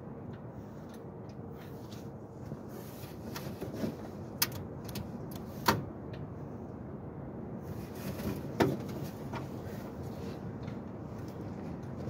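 A few sharp clicks and knocks, the loudest about four and a half, six and eight and a half seconds in, with smaller ticks between, over a steady low background rumble.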